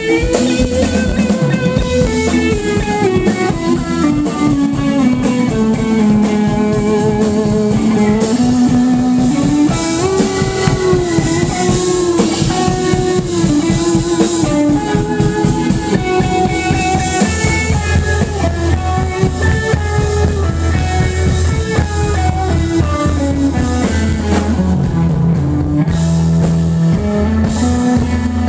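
Live rock band playing: electric guitar and drum kit with keyboard, a melodic line gliding up and down over a steady low bass.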